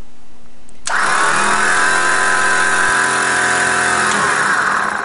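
WARN PowerPlant's built-in air compressor switched on for a test run. It starts suddenly about a second in, runs steadily at a constant pitch, then shuts off near the end and winds down.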